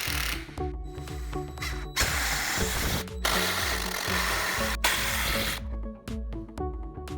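Background music with a steady beat, cut through by several short runs of a power tool that each start and stop abruptly.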